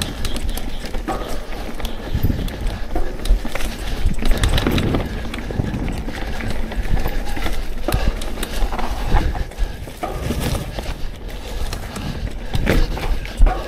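Mountain bike rolling fast down a dirt singletrack covered in dry leaves: tyres crunching over the ground, and the bike rattling and knocking irregularly over bumps, under a steady rumble of wind on the microphone.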